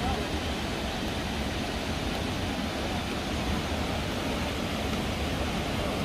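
Steady roar of the Ouzoud waterfalls: an even rush of falling water with no break or change.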